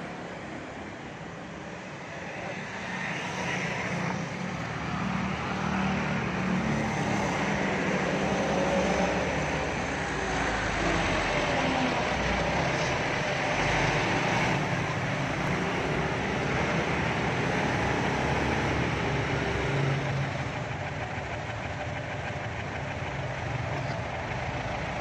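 Road traffic close by: motorbike engines and a small box truck driving past, with engine and tyre noise. The traffic gets louder a few seconds in and eases a little near the end, with engines running at low speed.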